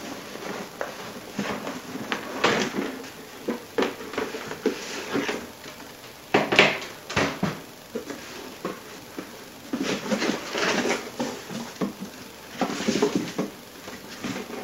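Handling noise from unpacking a cardboard box: cardboard flaps rustling and scraping, with items lifted out and set down on a wooden bench in irregular knocks and clatters, the loudest about six and a half seconds in. Paper manuals rustle as they are laid down near the end.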